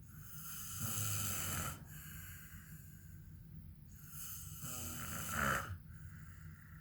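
A man snoring: two long snores about four seconds apart, the second rising in pitch and growing louder near its end.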